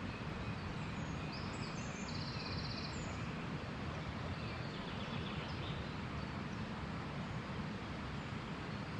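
Steady outdoor background noise, heaviest in the low end, with a few faint, short, high bird calls about one and a half to three seconds in.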